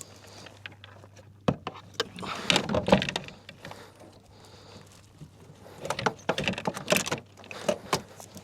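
Clattering knocks and rattles of gear being handled aboard a kayak, in bursts about two and six seconds in, over a low steady hum.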